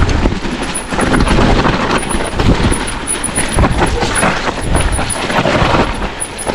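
Mountain bike descending a rough trail at speed: tyres rumbling over rock and gravel with a run of rattles and knocks from the bike, under a constant rush of wind on the microphone.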